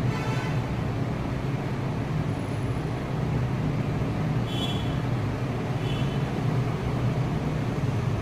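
Steady low rumbling background noise, with two short high chirps about halfway through and a little later.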